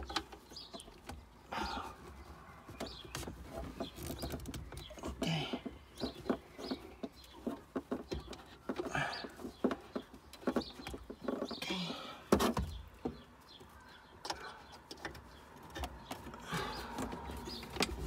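Handling noise from cables being plugged in and tucked away: scattered clicks, knocks and rustles as RCA leads are fitted into a car amplifier's inputs and the wiring is tidied.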